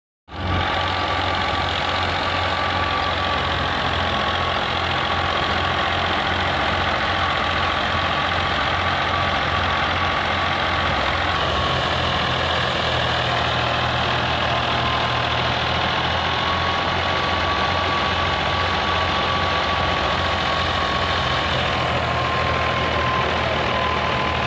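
Fiat 480 tractor's three-cylinder diesel engine running steadily under load, driving a belt-driven wheat thresher, whose steady whir and rushing noise blend with the engine, with a steady whine over it.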